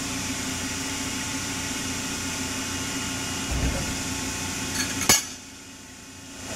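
Cincinnati 400H hydraulic press brake running with a steady hydraulic hum, a low thud about three and a half seconds in and a sharp metal clank about five seconds in, after which the hum drops lower.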